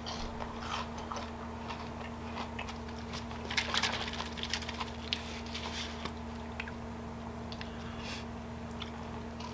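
A person chewing battered, deep-fried crappie, with small crisp crackles of the coating, busiest about three and a half to four and a half seconds in. A steady low hum runs underneath.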